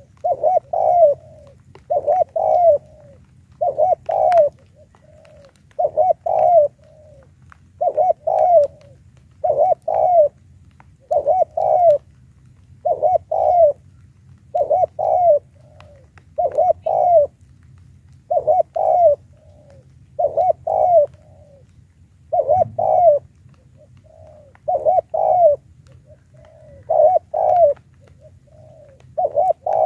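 Spotted dove cooing in a steady series of short, two-part coo phrases, about one every two seconds. It is a caged decoy dove calling to lure wild doves.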